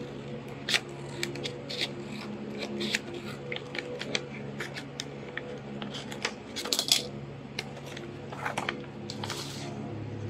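Small scissors snipping through paper in quick, irregular snips, with the sheet rustling as it is handled, over a steady low hum.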